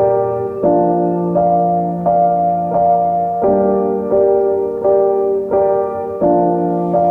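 Background piano music: soft chords played at an even pace, a new chord about every 0.7 seconds.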